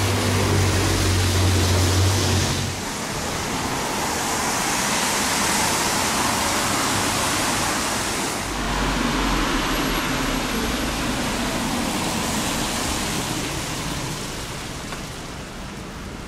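Town street traffic on a wet road: cars passing with steady tyre hiss that swells and fades, a low engine hum in the first few seconds and a low rumble again from about halfway through.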